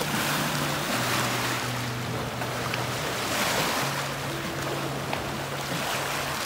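Lake waves washing and splashing against shoreline rocks, with a steady rush of wind on the microphone. Soft background music with long held low notes runs underneath.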